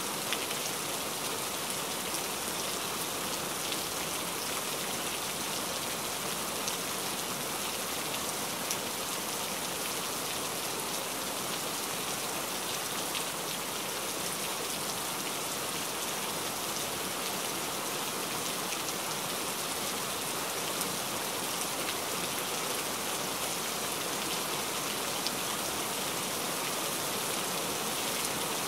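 Heavy rain falling steadily, a dense even hiss made of countless fine drop ticks on a hard surface.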